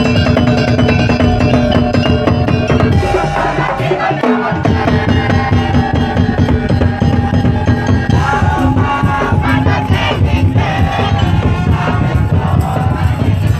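Loud Madurese daul (tongtong) music: dense, driving percussion under long held melody notes.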